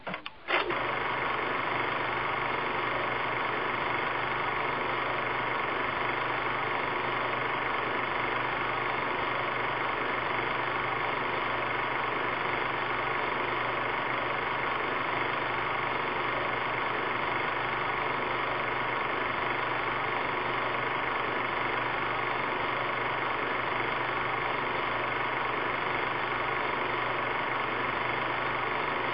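Film projector running: a steady mechanical whir with a constant motor hum, starting suddenly about half a second in.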